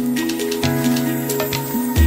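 Background music with held notes that change pitch in steps.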